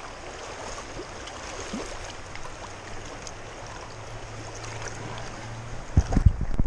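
River current running over rocks: a steady rush of flowing water. Near the end, a few loud low thumps break in.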